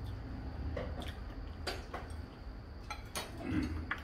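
Scattered light clicks and taps of metal chopsticks against dishes at the table, a few times over the few seconds, over a low steady background hum.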